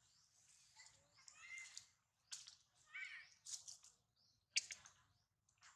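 Faint high-pitched animal squeaks and chirps: two short pitched calls about a second and a half and three seconds in, among several sharp clicks.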